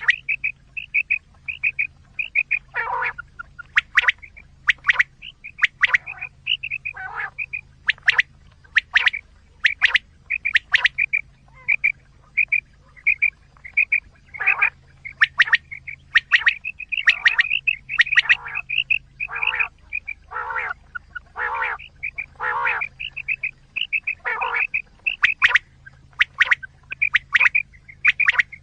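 Recorded quail calls played as a hunting lure: a fast, even run of short high chirps, about three a second, broken by sharp high notes and lower, buzzier calls.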